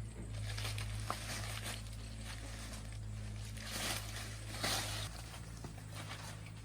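Rustling and scraping as plant stalks and leaves are handled, in several short bursts, over a steady low hum.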